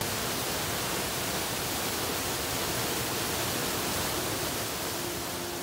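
Mountain stream cascade: white water rushing steadily over boulders. Music comes in faintly near the end.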